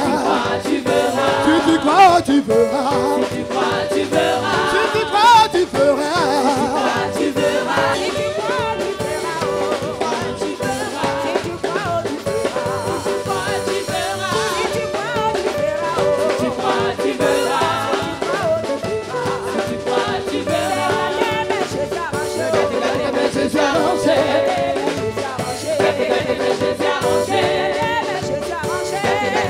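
Lively gospel praise music: voices singing over instruments and a steady drum beat.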